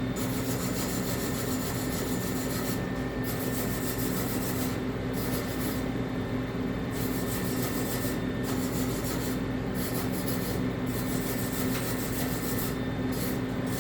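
MIG welder arc crackling and hissing as a steel joint is welded, in runs of a few seconds with short pauses where the arc stops, over a steady electrical hum.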